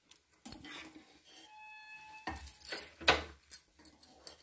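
A utensil knocking and clinking against a cooking pot of par-boiled basmati rice: a few short, scattered knocks, the loudest pair about two and three seconds in.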